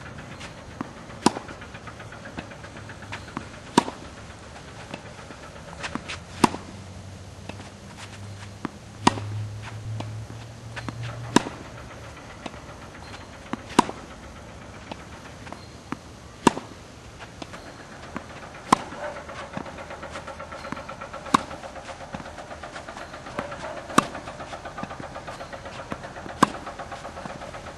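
Tennis racquet strings striking a ball in a groundstroke rally: a sharp pock about every two and a half seconds, with fainter bounces and far-end hits in between. A low rumble passes about nine to eleven seconds in, and a steady engine-like hum runs underneath in the second half.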